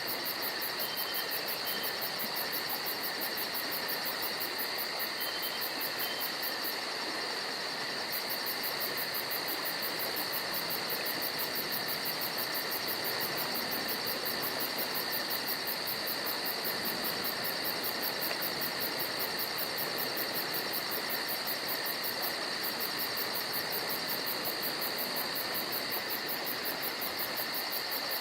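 Steady chorus of trilling insects, an unbroken high, fast-pulsing buzz with no pause or change.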